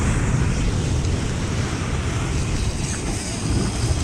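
Surf breaking and washing over jetty rocks, with heavy wind noise buffeting the microphone.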